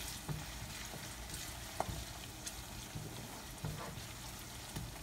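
Chopped onions, garlic and ginger sizzling gently in oil in a wok as a wooden spoon stirs them, with a few light scrapes and taps of the spoon against the pan.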